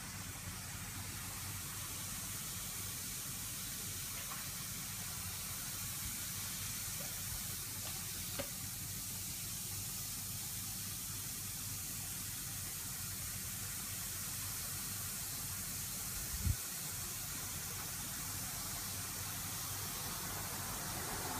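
Steady fizzing hiss of a dissolving bath ball in a bowl of water, with a few faint ticks and one soft low thump partway through.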